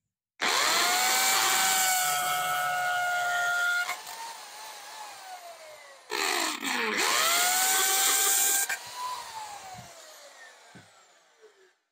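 DeWalt DWD520 corded hammer drill boring into a concrete cinder block with a 5/32-inch masonry bit, in two runs. Each time, the motor winds up to a steady whine for about three seconds. When the trigger is released, the whine falls away as the drill coasts down.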